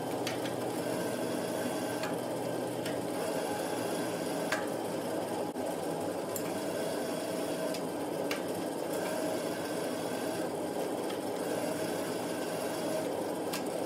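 Motor-driven roller mill running steadily while a hot Damascus steel billet is passed through its rollers to stretch it, with a few faint clicks along the way.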